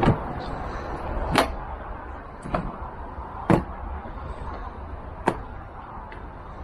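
Hard plastic knocks and clicks of a Givi top box being seated onto its rack mounting: five sharp knocks a second or two apart, the loudest about three and a half seconds in.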